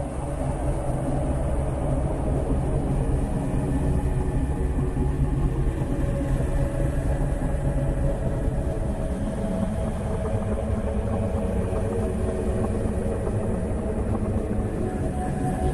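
A steady low rumble with a faint hum, like a vehicle running.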